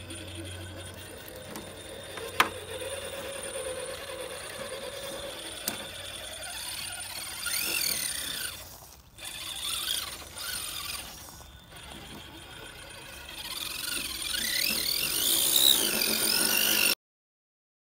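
Brushless motor and gears of an RC rock crawler whining, the pitch rising and falling with the throttle, with one sharp click about two and a half seconds in. The whine is loudest near the end and then cuts off suddenly.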